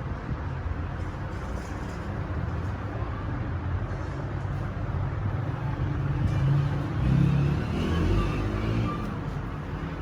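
Low, steady rumble of road traffic, with a vehicle engine swelling louder about six to eight seconds in and then fading.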